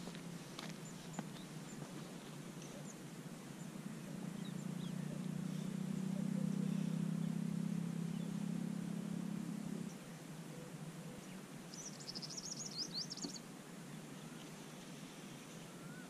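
A low steady hum swells and then drops away about ten seconds in, over a faint outdoor background. A bird gives a quick run of high chirps near the end.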